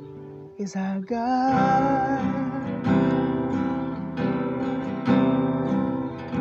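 Acoustic guitar strumming chords, picking up after a short lull about a second in, with a strum every half second or so ringing over sustained chords.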